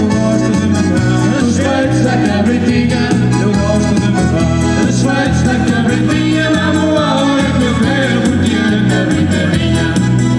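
Live band playing a dance tune with a steady beat.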